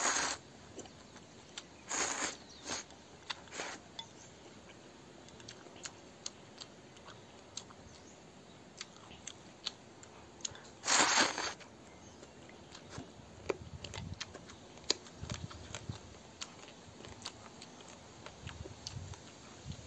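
A person eating thick rice noodles with chopsticks: several loud slurps, the longest and loudest about eleven seconds in, between quieter chewing and small sharp clicks.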